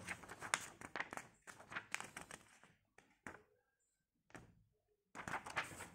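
Paper and book handling: rustling with light taps and knocks as pages are shifted, briefly going quiet in the middle, then rustling again near the end.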